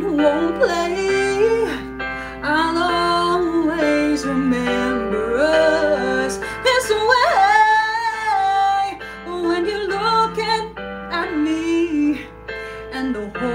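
A woman singing a song with instrumental accompaniment, her voice gliding between held notes, rising into a long-held high note about seven seconds in.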